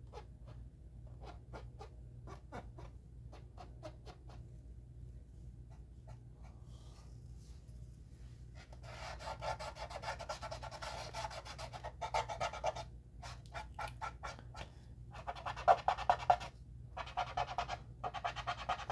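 Cotton swab rubbing over a plastic model ship hull in repeated back-and-forth strokes, wiping off and blending acrylic rust wash. The strokes are light and scratchy at first, then become louder and denser from about nine seconds in, with two short pauses.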